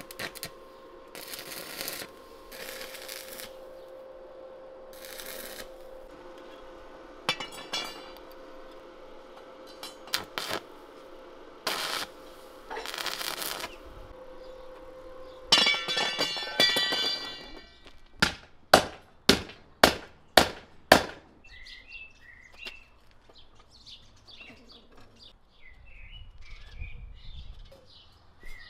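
Stick (arc) welder joining the ends of a steel rebar ring: a steady electrical hum broken by several short bursts of arc crackle, the longest about halfway through. Then a quick run of about seven sharp knocks, and birds chirping near the end.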